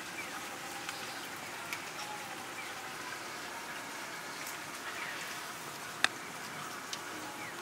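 Steady patter of rain, with a few faint short chirps and a single sharp tap about six seconds in.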